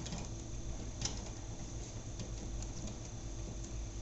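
Faint ticks and light clicking of a plastic wire nut and stripped copper wires being handled and twisted together by hand, over a low steady hum. The clearest tick comes about a second in.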